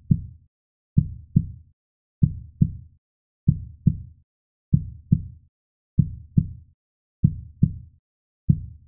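Heartbeat sound effect: slow, low double thumps (lub-dub) repeating steadily about every one and a quarter seconds, about seven times.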